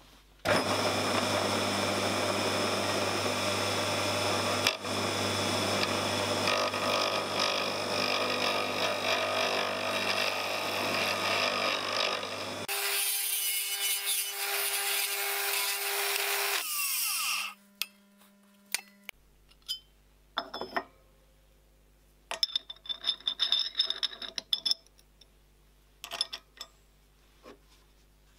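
Single-phase 5 hp electric motor spinning a laminated plywood drum on its shaft while a hand-held tool cuts the wood to true it, a steady motor hum under loud scraping of wood. About twelve seconds in the motor is switched off and the drum coasts down, its pitch falling until it stops a few seconds later. Then scattered clicks and rustles of parts being handled.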